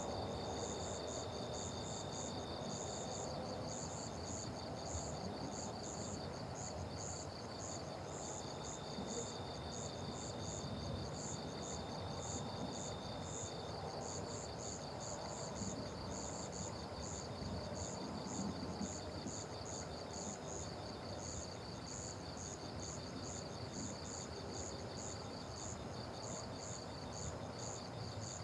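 An outdoor insect chorus of crickets and other insects, several at different high pitches at once: one chirping in regular pulses about twice a second, another in a fast continuous trill, a third in a steady buzz that drops in and out. A low steady background noise runs underneath.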